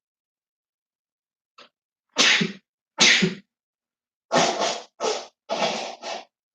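A run of about six sharp, explosive bursts of breath from a person, such as sneezes or coughs, starting about two seconds in and coming close together, each well under half a second long.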